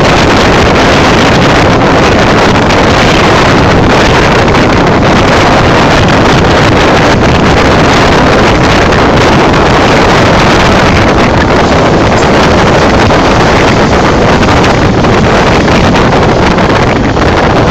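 Loud, steady rush of a moving train's running noise, heavily mixed with wind buffeting the microphone.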